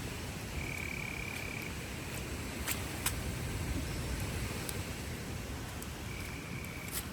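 A frog calling twice, each call a steady high trill lasting about a second, over a steady hiss with a few sharp clicks.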